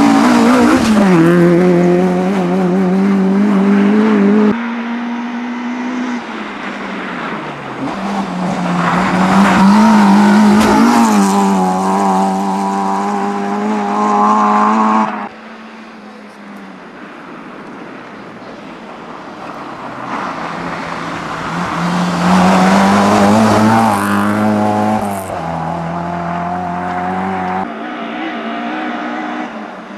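Rally car engines revving hard as the cars drive a snow-covered stage one after another, the pitch climbing and falling repeatedly with the gear changes. A quieter stretch in the middle swells as the next car approaches, and the sound jumps abruptly a few times from one car's pass to the next.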